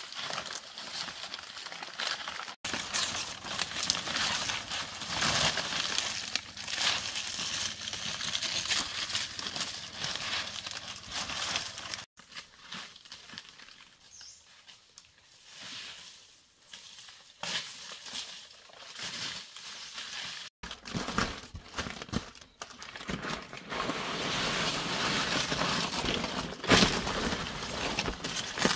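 Rustling and crinkling handling noises, dense and irregular, broken by abrupt cuts into several segments.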